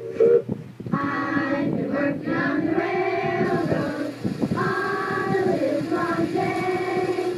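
High, child-like voice singing a short tune of held notes. It comes in about a second after two brief, loud pitched toots.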